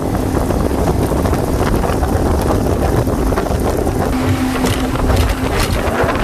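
Yamaha 115 outboard motor running at speed, driving the skiff across choppy water, with wind buffeting the microphone and the rush of the wake. The sound stays steady and loud throughout, a low hum under the wind noise.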